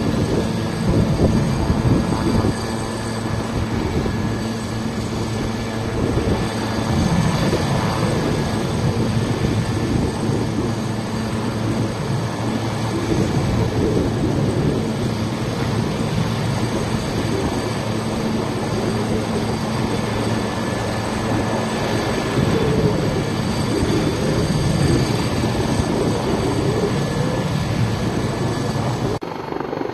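Steady loud drone of a helicopter's engine and rotor, unbroken until it drops off abruptly near the end.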